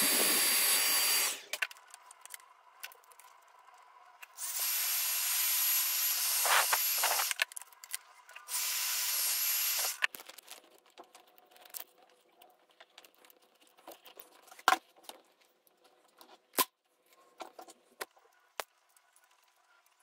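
Heat gun blowing hot air onto heat-shrink tubing, a steady rush of air with a thin high whine; it is switched off about a second in, then run twice more for a few seconds each. After that, scattered light clicks and knocks of cables being handled.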